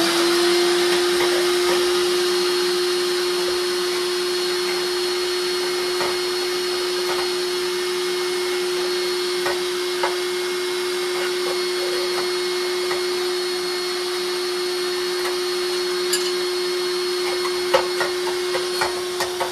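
Vacuum cleaner used for sweeping soot out of a sauna stove, just switched on: its motor whine rises to speed in the first moment, then runs steadily, with a few short clicks now and then.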